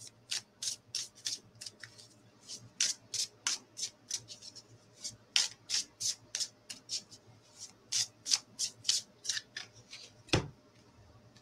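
An oracle card deck being shuffled by hand: quick, irregular swishes and flicks of the cards, about three a second, ending in a single thump near the end.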